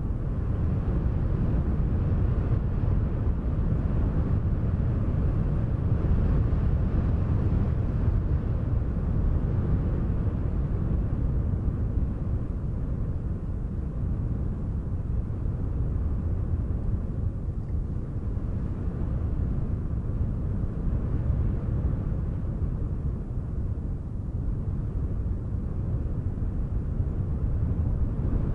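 Steady wind noise, a deep rumble strongest in the low end, swelling and easing slightly.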